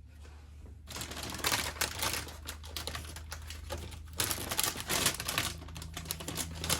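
Rapid, dense clicking rattle of small round resin diamond-painting drills shifting inside a small plastic bag as it is handled, starting about a second in, with a low steady hum underneath.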